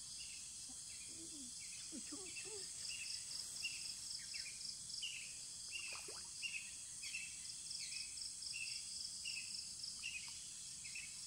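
Steady high-pitched chorus of insects with a pulsing buzz, over which a bird repeats a short chirping note about twice a second, with a few brief falling calls in between.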